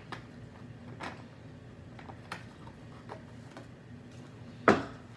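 Scattered light clicks and crackles of a large plastic water jug being handled, then one sharp, much louder knock near the end.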